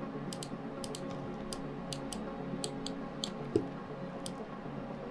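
Scattered light clicks of a computer mouse and keyboard, about a dozen at irregular intervals, with one louder knock about three and a half seconds in, over faint steady background tones.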